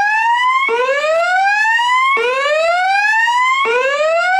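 Fire alarm voice-evacuation speaker sounding its whoop evacuation signal: a loud tone that sweeps upward, cuts off and starts again low, about every one and a half seconds.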